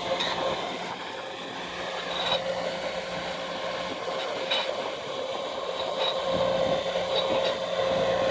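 An engine running steadily, with a few light metallic clicks and taps from the pipe and its clamps being handled and adjusted.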